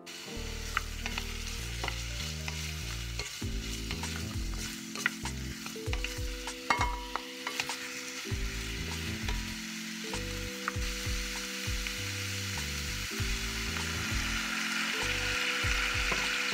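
Daikon radish chunks and fried tofu sizzling in a hot cast-iron pot, with a few sharp knocks of pieces landing in it during the first half; the sizzling grows louder near the end.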